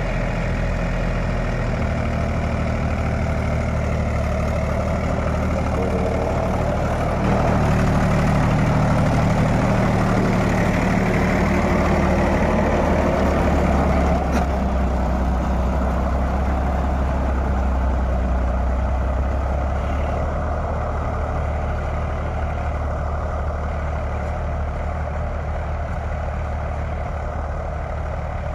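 Mahindra 275 DI tractor's three-cylinder diesel engine running steadily under load while it drives a 7-foot rotavator tilling the soil. It gets louder about a quarter of the way in and eases off in the second half.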